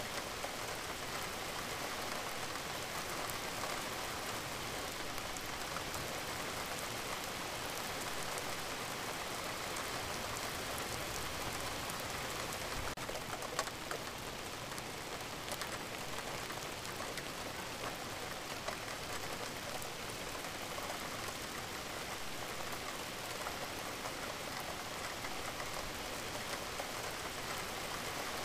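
Recorded rain-sound track: steady, even rain falling on a surface, with occasional faint drop ticks.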